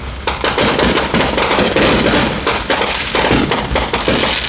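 Fireworks display going off in a rapid, continuous barrage of bangs and crackles.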